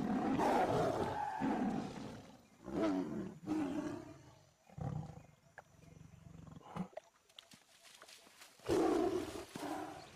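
Bengal tiger roaring and snarling in a string of rough bursts: long and loud at the start, shorter ones after, and a loud one again near the end. The snarls are typical of tigers squabbling over territory.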